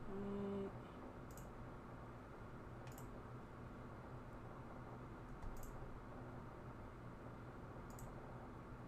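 Computer mouse clicking faintly about four times, a few seconds apart. A brief low squeak lasting about half a second comes at the very start.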